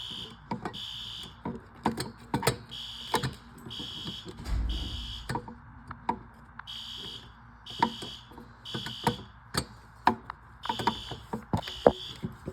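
A System Sensor P2R fire alarm horn strobe sounding in the temporal-3 evacuation pattern: three short, high-pitched honks, a pause, then three more, repeating. Over it come sharp metallic clicks and knocks from a key being forced in a fire alarm device whose lock won't turn, with one dull thump about four and a half seconds in.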